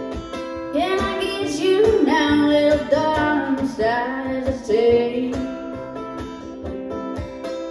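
Live female voice singing over a strummed acoustic guitar; the singing stops about five and a half seconds in while the guitar plays on.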